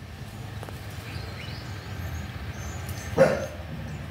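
A dog barks once, about three seconds in, over a steady low background noise.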